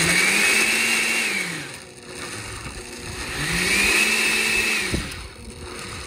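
Electric blender run in two short pulses of about a second and a half each, its motor pitch rising as it spins up and falling as it winds down. It is puréeing the mole ingredients with chicken stock.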